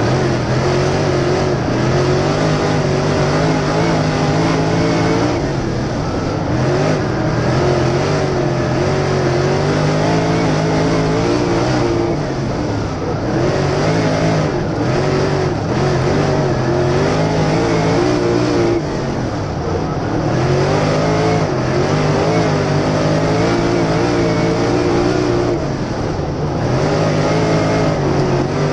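Steel-block V8 of a dirt late model at racing speed, heard from a camera mounted on the car. The loud engine note drops every several seconds as the driver lifts for a turn, then climbs again as he gets back on the throttle.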